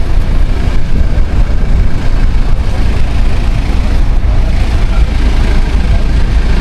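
Wind buffeting the camera microphone, a loud, steady rumble that flutters constantly in level.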